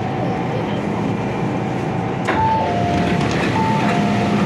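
MTR door-closing warning chime: after a sharp click about two seconds in, a high-low two-tone beep sounds twice, over the steady hum and crowd noise of a busy metro platform.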